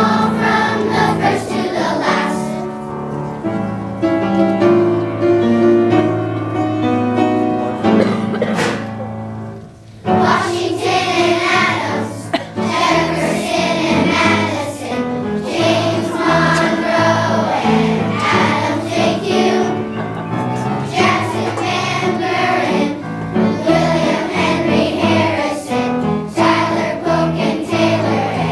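A children's choir singing a song together with musical accompaniment. The music drops briefly about ten seconds in, then carries on.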